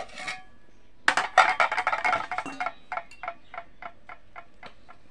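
Ladle clinking and scraping against the cooking pot as boiling rice is stirred to check whether it is done. A quick flurry of clinks comes first, then slower, evenly spaced taps about four a second that grow fainter.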